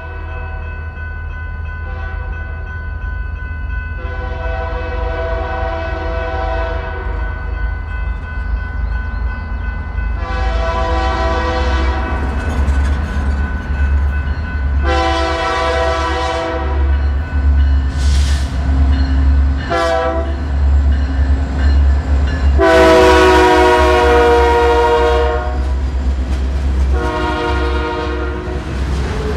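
Air horn of a BNSF diesel freight locomotive sounding a series of long blasts, with two short blasts in the middle. Under it runs the steady low rumble of the passing locomotives and train.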